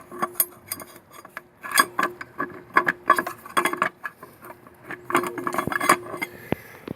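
Steel clutch plates and friction discs clinking and scraping against each other and the drum as they are worked out of a 4R100 automatic transmission's clutch pack, with irregular metallic clicks and knocks.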